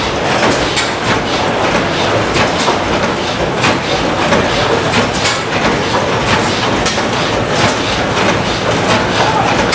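Large hot-tube-ignition stationary gas engine running, a steady mechanical clatter with frequent sharp clacks from its moving parts.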